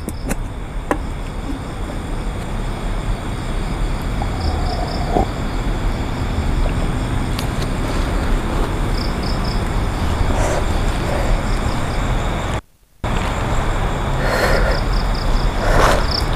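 Night forest ambience: a steady rushing noise with a low rumble, broken a few times by short high pulsed insect chirps. The sound cuts out for a moment about 13 seconds in, and there is some rustling near the end.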